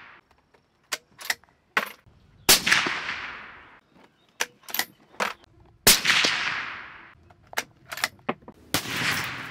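Suppressed bolt-action .308 Winchester rifle firing three shots about three seconds apart, each with a long, echoing tail that fades. Between the shots come short, sharp metallic clicks as the bolt is cycled to chamber the next round.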